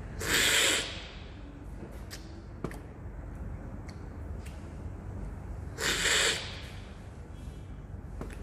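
Two loud, short slurps of brewed coffee from a cupping spoon, one at the start and one about six seconds in, sucked hard to spray the coffee across the palate as in coffee cupping. Between them come a few light clinks of the spoon against the cupping glasses.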